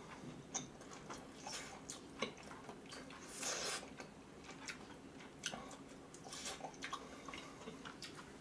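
Faint wet mouth sounds of someone chewing a mouthful of curry noodles and rice: scattered small clicks and smacks, with a brief breathy rush about three and a half seconds in.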